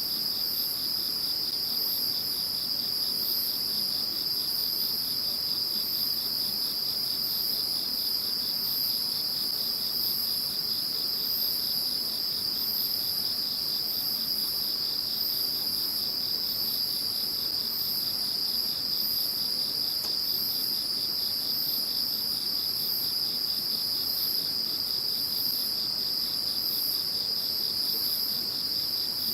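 Chorus of singing insects: a continuous high-pitched trill, with a higher chirp repeating about once a second over it.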